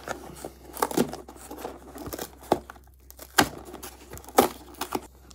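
Cardboard box of plastic slider zipper bags being handled: plastic crinkling and the cardboard flap rubbing and being tucked in, heard as scattered short rustles with a few sharper taps.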